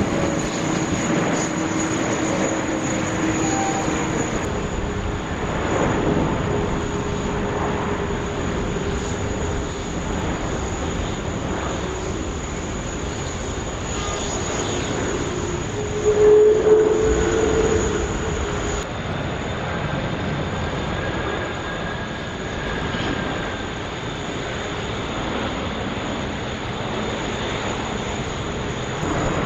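Twin-engine jet airliners landing one after another: a steady jet-engine rush with a faint whining tone, swelling to a brief louder stretch about halfway through.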